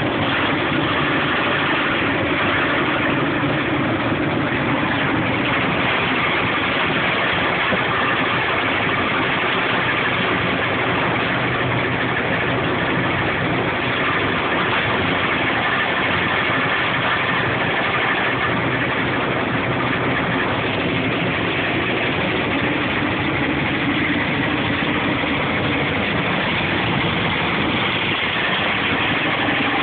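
Old straw chaff cutter converted into a wood chipper, running steadily while it chips, with wood chips piling up at its outlet.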